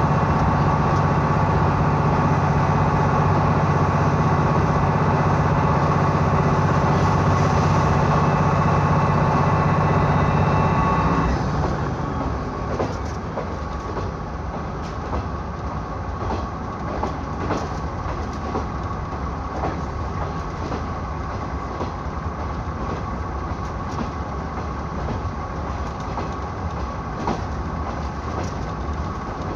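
KiHa 66 diesel railcar running under power with a steady, loud engine drone. About eleven seconds in, the engine note drops away suddenly and the train coasts on, its wheels rumbling on the rails with regular rail-joint clicks.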